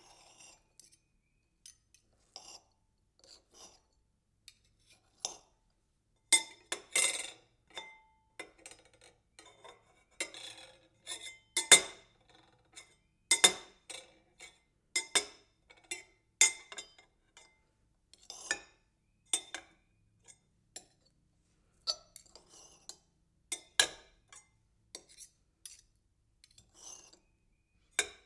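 A knife cutting and rattling: irregular sharp clicks and clinks, some with a brief metallic ring, coming in clusters with short pauses between.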